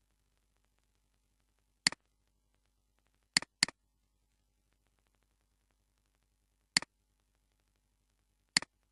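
Computer mouse button clicks, five in all, each a quick press-and-release, with two close together like a double-click about a third of the way in.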